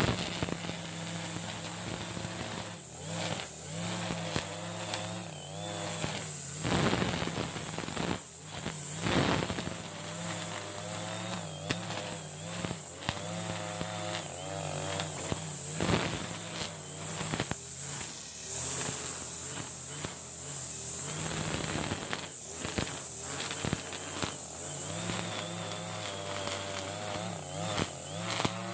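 Backpack brush cutter's small petrol engine running steadily at high speed while its spinning trimmer head cuts long grass, with a steady high whine over it. The engine note wavers and dips briefly as the head bites into the grass.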